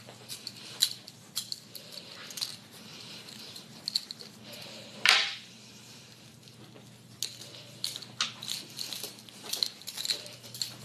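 Room sound of people moving about and handling small objects: scattered light clicks and rustles over a steady low hum, with one loud knock about five seconds in.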